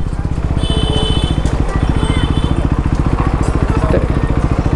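KTM Duke 390's single-cylinder engine idling steadily, with a fast, even firing beat.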